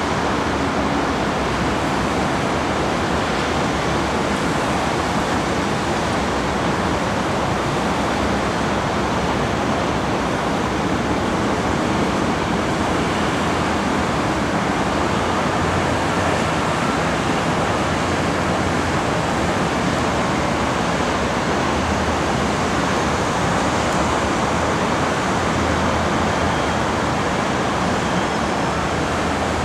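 Steady, even rush of city traffic noise, with no rise or fall and no single vehicle or train standing out.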